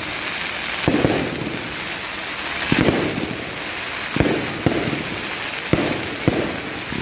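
Aerial fireworks bursting overhead: a string of about eight sharp bangs, several in close pairs, with a steady hissing crackle between them.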